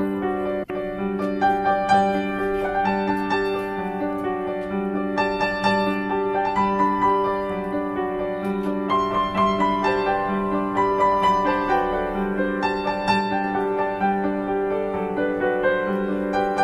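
Background music: a keyboard melody over steady held low chords, dropping out for an instant under a second in.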